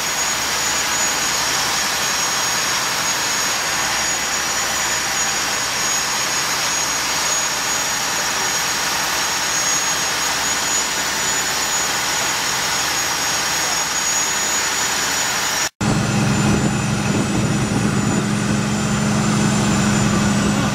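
A steady, loud rushing hiss with a thin high whine running through it. After a sudden cut about three-quarters of the way in, a boat engine runs with a low, steady drone.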